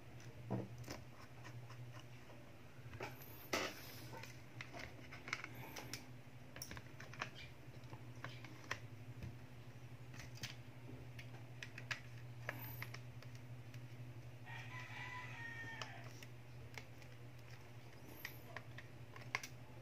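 Plastic back cover of a Vivo Y11 phone clicking as it is pressed and snapped onto the frame: a series of small scattered clicks over a steady low hum. A rooster crows once in the background about fifteen seconds in.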